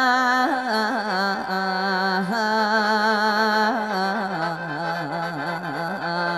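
Mor lam music: a long, wavering, ornamented sung line over khaen (bamboo free-reed mouth organ) accompaniment, holding notes and sliding between them.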